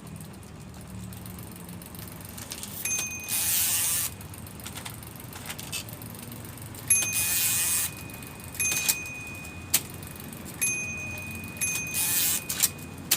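Three short hissing sprays, each under a second, with a few sharp clicks in between, while an IBM Selectric III typewriter's mechanism is being cleaned.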